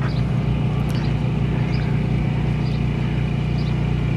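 Steady low engine drone, unchanging throughout, with faint short high chirps now and then.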